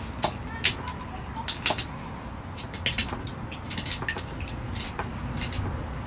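A sharp carving knife scraping and prying dry bark off dead spruce wood: a string of short, irregular crackles and scratches.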